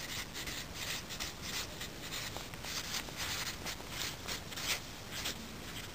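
Felt-tip marker writing on lined notebook paper: short rubbing strokes as each letter is drawn, about three a second.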